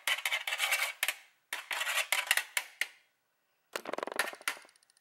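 Metal spoon scraping and clicking against a metal springform pan while spreading fish roe, in three bouts of quick scrapes with short pauses between.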